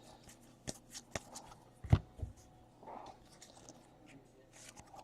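Panini Elite Draft Picks football trading cards being handled and flipped through: a few soft taps and flicks with light rustling, the loudest about two seconds in.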